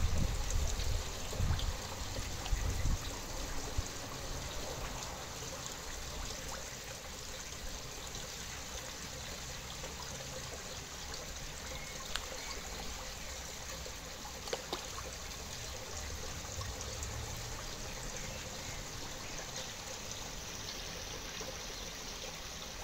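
Pond water trickling steadily, with a few low rumbling bumps in the first three seconds and a couple of faint ticks later on.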